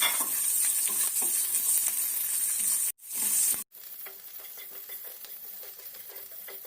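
Chopped shallots, curry leaves and dried red chillies frying in hot oil in a pan for a curry tempering, a steady sizzle with a spoon stirring. The sound cuts out abruptly twice around three seconds in and comes back much quieter.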